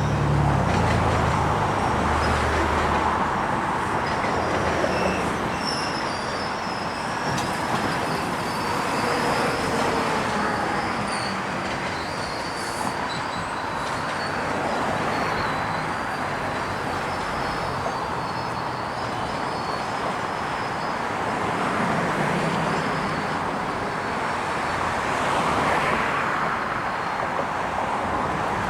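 GO Transit commuter train moving through the station: a steady rumble of wheels on rails, with faint high-pitched wheel squeal in the first half and a low diesel engine hum in the first few seconds.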